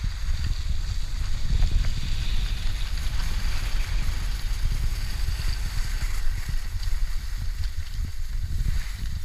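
Wind buffeting the camera's microphone as a skier glides downhill, a steady low rumble, with the hiss of skis sliding over packed snow.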